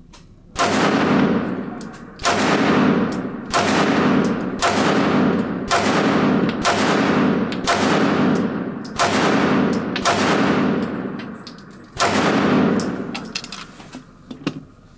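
CZ SP-01 pistol fired in a steady string of shots about a second apart, each shot ringing out and echoing through an indoor range, with a slightly longer gap before the last shot.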